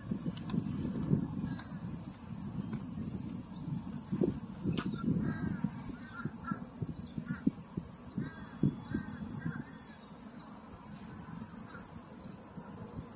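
Steady high-pitched insect buzz throughout, over an uneven low rumble. A few short chirps come about five to nine seconds in.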